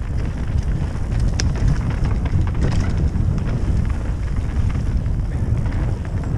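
Mountain bike descending a dry dirt forest trail: wind buffeting the microphone over the rumble of tyres on the ground, with scattered clicks and rattles from the bike, the sharpest about a second and a half in.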